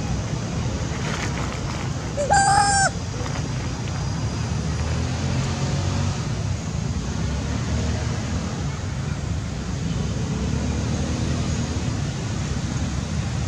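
Steady low wind rumble on the microphone. About two seconds in, it is broken by one short, loud animal call that rises in pitch and then holds.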